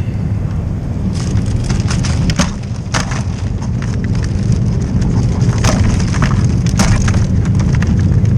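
Irregular clattering and scraping as blue crabs are shaken out of a wire crab pot, over a steady low rumble.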